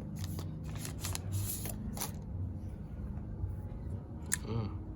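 Scattered rustles and small clicks from handling a phone and its packaging, busiest in the first two seconds with another click about four seconds in, over a steady low hum.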